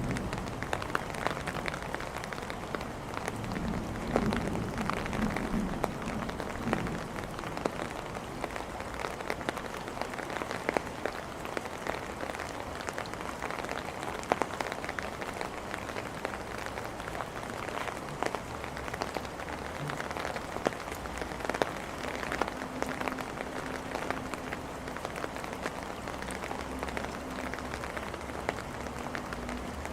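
Steady rain falling on hard surfaces, with many individual drops pattering through the hiss of the downpour.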